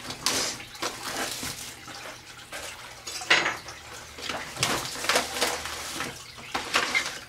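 Clear plastic wrap crinkling and rustling in irregular bursts as it is pulled and torn off a plastic tomato crater, with a sharper crackle about three seconds in.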